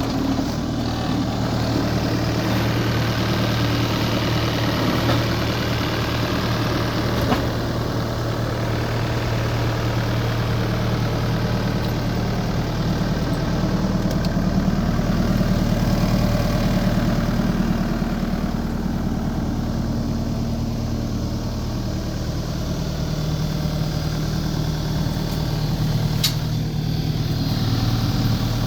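A 2021 New Holland C327 skid steer's diesel engine runs steadily at idle. Its note shifts slightly a couple of times in the last few seconds.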